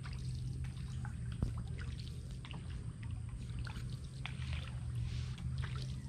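A wooden paddle dipping and pulling through creek water as a small boat is paddled along, with splashes and water trickling off the blade, over a steady low rumble.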